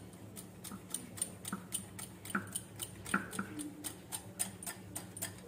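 Metal wire whisk beating batter in a glass bowl, its wires ticking against the glass about four times a second.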